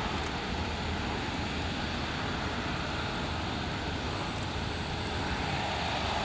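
Airbus A350-900 with its Rolls-Royce Trent XWB turbofans running as the airliner moves along the runway: a steady jet rush that neither rises nor falls.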